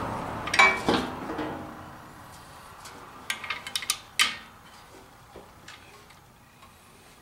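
Hand tools clinking on the mower's steel bracket and bolts as a bolt is worked: two ringing metal clinks just under a second in, then a quick run of small clicks and one sharper clink a little after three to four seconds.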